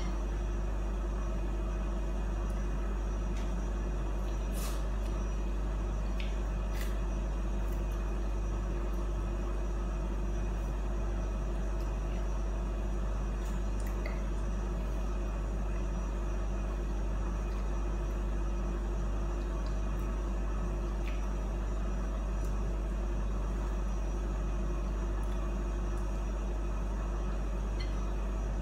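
Steady low hum filling a small room, with a few faint clicks of someone eating by hand and a spoon clinking against a bowl at the very end.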